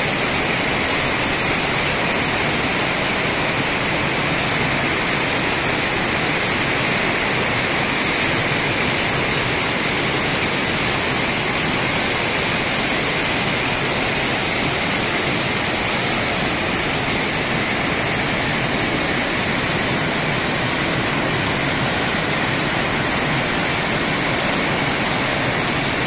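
Waterfall cascading over rock ledges: a loud, steady rush of falling water.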